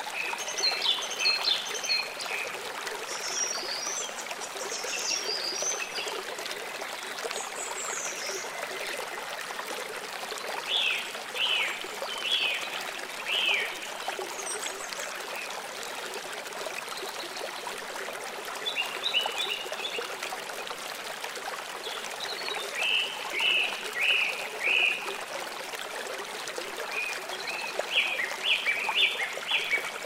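Water trickling steadily, with small birds chirping in short runs of quick high notes every few seconds.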